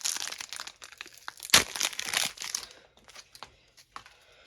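Hockey card pack wrapper being torn open and crinkled, with one sharp snap about a second and a half in, then a few light clicks and rustles as the cards are handled.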